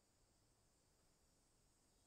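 Near silence, with only a faint, even high-pitched hiss.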